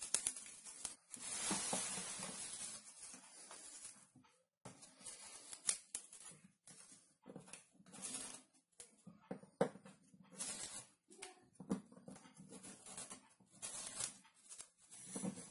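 Glued paper pattern being peeled and rubbed off a cut plywood fretwork panel by hand. A long papery rasp of tearing and peeling comes in the first few seconds, then short scratchy finger rubs and light taps on the wood.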